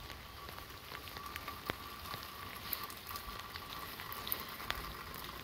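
Light rain pattering, with scattered sharp drops over a faint, even hiss.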